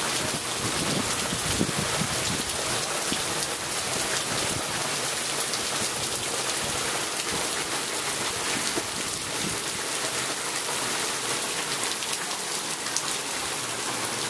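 Heavy hurricane downpour falling on wet pavement and grass: a steady, dense hiss of rain flecked with fine drop ticks.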